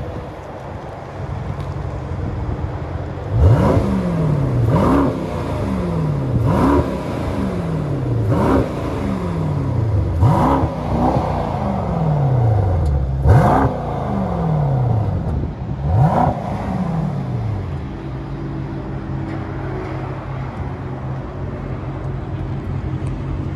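Mercedes-AMG GT63 S's twin-turbo 4.0-litre V8 and exhaust idling, then free-revved seven times while standing still. Each rev rises sharply and falls back to idle over a second or so, and the engine settles to a steady idle near the end.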